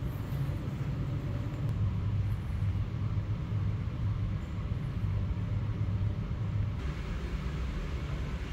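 Steady low rumble of road traffic, heard from inside a glass-walled footbridge, with a faint hiss that grows a little stronger near the end.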